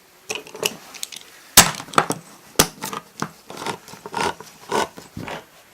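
A can of salmon being opened: a string of sharp clicks and short metallic scrapes, with two sharp snaps about one and a half and two and a half seconds in, then quicker, smaller clicks.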